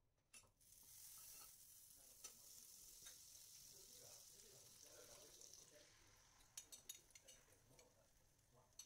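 Butter faintly sizzling as it melts in a hot nonstick frying pan, a steady hiss that starts about a second in. Near the end come a few light clicks of a fork and bowl.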